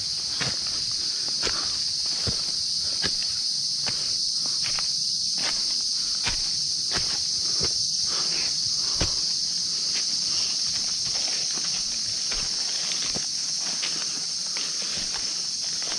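Steady high-pitched insect chorus drones throughout, with hikers' irregular footsteps crunching and knocking underneath, roughly one or two a second.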